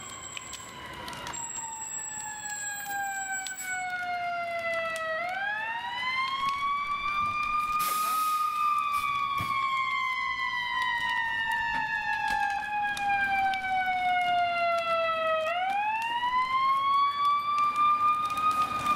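Fire engine siren wailing in long slow cycles: the pitch sinks steadily, then sweeps back up quickly, twice. It grows louder as the apparatus approaches.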